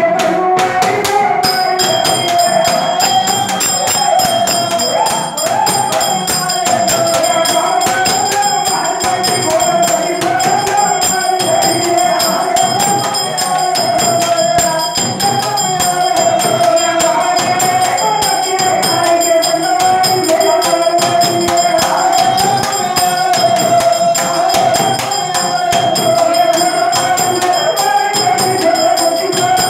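Villu paattu bow-song music: singing over steady rhythmic percussion from the bells hanging on the bow and a clay pot drum, with a constant jingling ring.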